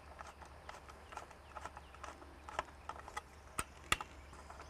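Small irregular clicks and taps of a screwdriver driving a screw into the plastic base of an exterior twin-lamp security light. Near the end come two sharper clicks as the fixture is handled and a lamp holder is swivelled.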